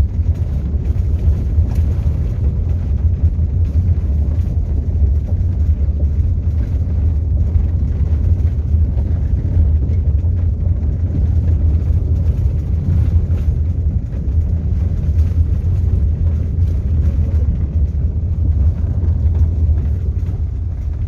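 Steady low rumble of a Chevrolet Captiva SUV driving along a gravel road, heard from inside the cabin: tyre, road and engine noise with no change in pace.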